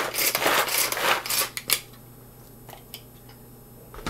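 Tupperware Chop 'N Prep pull-cord chopper being pulled hard again and again, its blades whirring and rasping as they chop carrots, stopping about two seconds in. A few light clicks follow.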